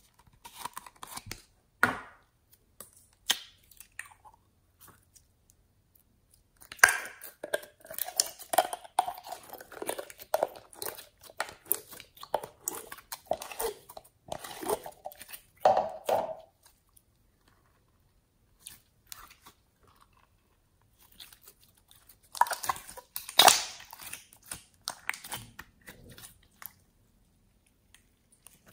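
Clear purple jelly slime squelching and popping with sticky clicks as fingers pull it out of a plastic container and stretch it. The sounds come in bouts, with a few sharp plastic clicks in the first seconds and a quiet pause in the middle.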